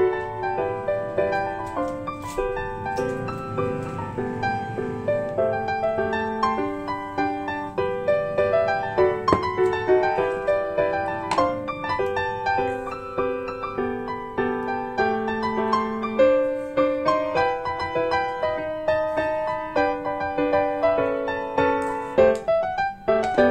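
Background piano music: a gentle melody of evenly paced notes.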